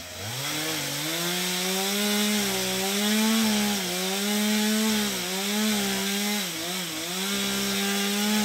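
Two-stroke chainsaw revving up from low to high speed, then running flat out. Its pitch dips a few times under load as it cuts into black locust wood.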